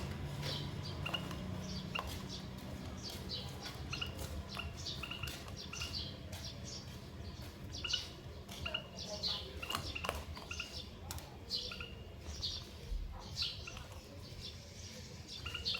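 Short high chirps from small caged finches, a female canary and a male white-headed munia, coming irregularly several times a second over a low background hum.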